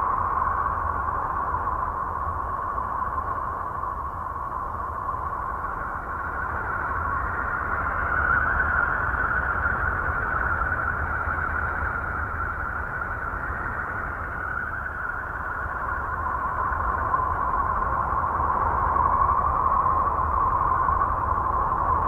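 Voyager 2 data from Uranus's radio and plasma-wave emissions, converted into sound. It plays as a continuous eerie hissing drone with a whistling band in the middle range and a low rumble beneath. It swells and ebbs slowly, loudest about nine seconds in and again near the end.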